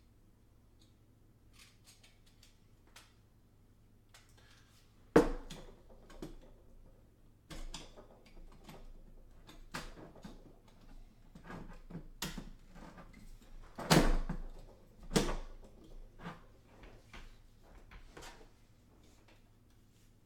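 Metal frame pieces of a DIY mining-rig case being handled and fitted together: light clicks and rattles, with a few sharp clanks, the loudest about five seconds in and again around fourteen and fifteen seconds in.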